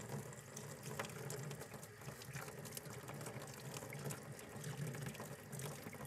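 Water running from a shop-sink faucet opened up to a higher flow, a steady rush of water.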